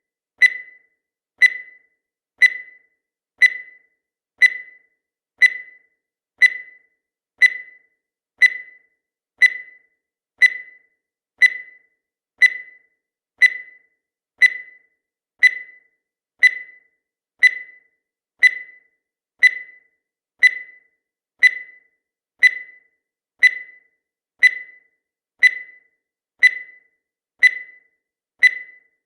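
Countdown timer sound effect: a short, high-pitched electronic beep once every second, each one fading away quickly, marking off the seconds.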